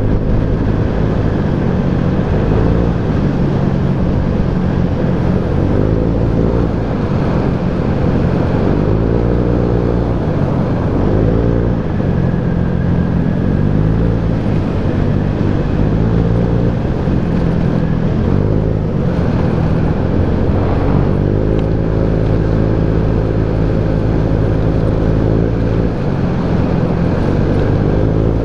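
Motorcycle engine running under way, its pitch rising and falling several times with throttle and gear changes, over a steady rush of wind noise.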